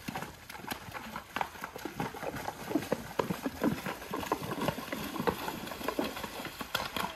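A Paso Fino horse's hooves splashing quickly through a shallow, stony creek: a fast, close run of splashes and knocks.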